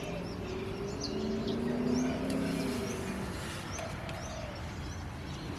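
Small birds chirping in short, scattered calls, over a low steady hum that swells for a few seconds.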